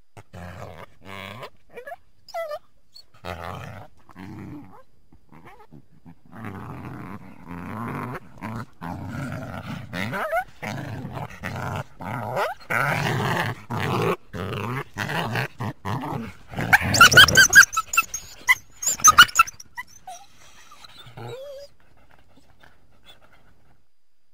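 Coyote growling and snarling in a long run of short bursts that grow louder, then a loudest flurry of sharp, high yelps and barks about seventeen seconds in.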